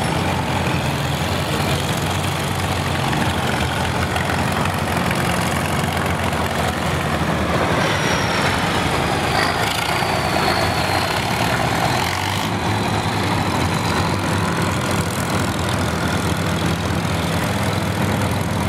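Antique tractor engines running steadily as the tractors drive past one after another: a Farmall, then a John Deere 4320 with its turbocharged six-cylinder diesel, then an International. The sound fills out around the middle as the John Deere passes, with a faint high whine that slides slightly down in pitch.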